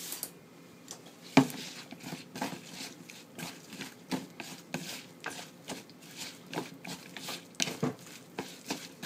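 Wooden chopsticks stirring diced mountain yam in wet tempura batter in a bowl: a run of short clicks and taps against the bowl, about two a second, with one sharper knock about a second and a half in.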